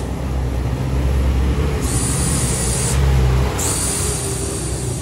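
Bandos batter sizzling in hot cast-iron molds on a gas stove, a high hiss that starts about two seconds in, breaks off briefly and comes back, over a steady low rumble.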